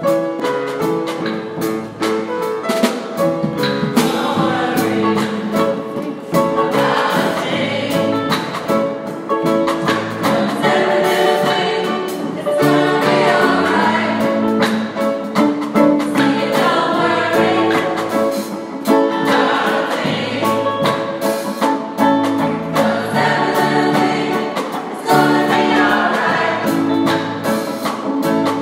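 Small gospel choir singing together in harmony.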